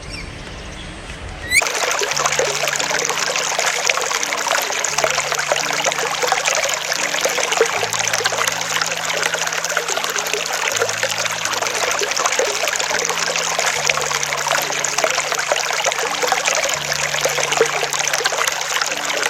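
Water trickling steadily, starting abruptly about a second and a half in.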